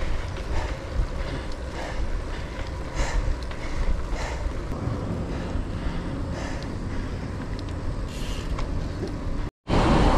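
Wind buffeting the microphone of a handlebar camera on a moving bicycle, a steady low rumble mixed with tyre noise on the road and faint rattles. The sound drops out for a moment near the end.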